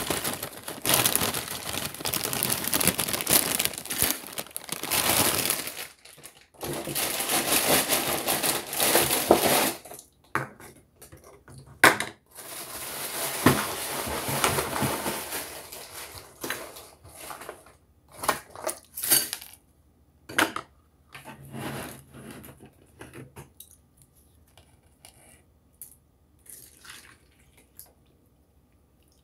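Crunchy dry cereal being eaten and handled: long stretches of loud crunching and rustling, then scattered clicks and clinks of a spoon against a bowl through the second half.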